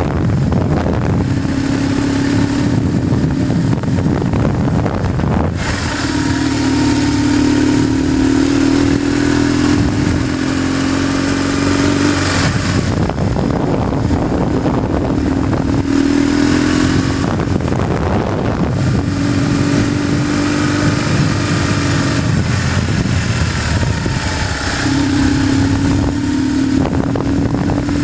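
BMW GS motorcycle engine running under way, its note swelling for stretches of a few seconds and dropping back in between, under a steady rush of wind.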